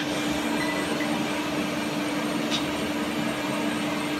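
Steady running hum of a CNC lathe with its spindle stopped: a constant mid-pitched tone over an even rush of machinery noise. A brief light tick comes about two and a half seconds in.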